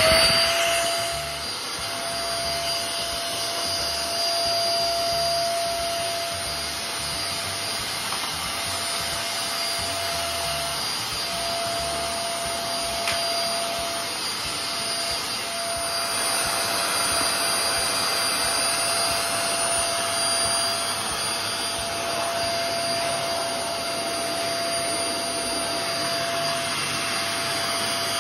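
Eureka Forbes Trendy Zip 1000-watt canister vacuum cleaner running at full suction with a steady rushing of air and a high motor whine, loudest in the first second just after switch-on. Its floor brush is drawing air across a tiled floor.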